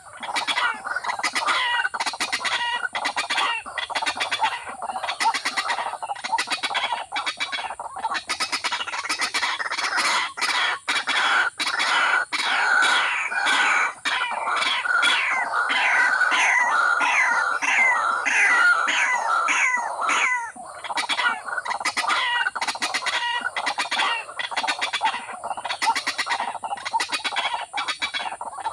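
Waterhen-type rail calling in a rapid, unbroken series of harsh clucking notes, several a second, with a short lull about twenty seconds in.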